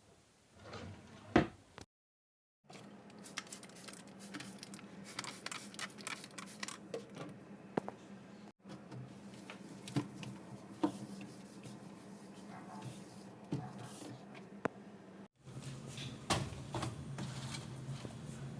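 Scattered knocks, clicks and light clattering of refrigerator shelves, drawers and containers being handled and moved, over a steady low hum.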